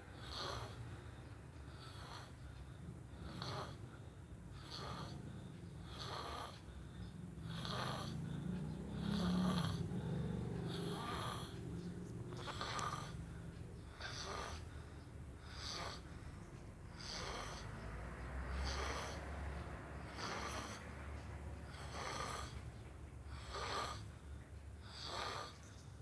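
A sleeping person snoring, a rasping snore about once a second.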